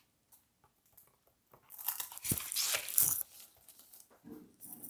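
Plastic-sleeved Blu-ray packaging being handled, crinkling and rustling, with a soft knock a little over two seconds in; the rustling is loudest around the middle and fades out.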